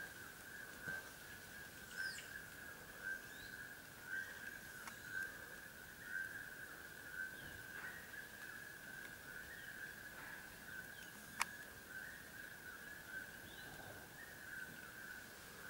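Forest ambience: a steady high-pitched insect drone with scattered short bird calls, and one sharp click past the middle.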